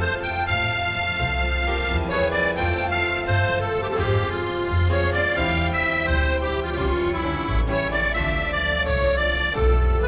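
Accordion-led background music, held melody notes over a recurring bass line.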